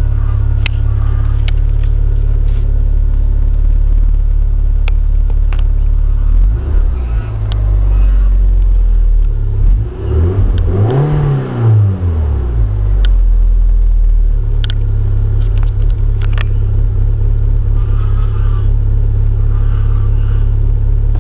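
Fiat Barchetta's 1.8-litre four-cylinder engine and exhaust, heard from inside the cabin, idling steadily. About a third of the way in it is blipped a few times, then revved once higher and let fall back to idle.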